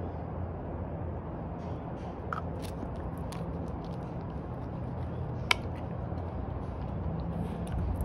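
A dog gnawing a stick, with a few sharp cracks of wood, the sharpest about five and a half seconds in, over a steady low hum.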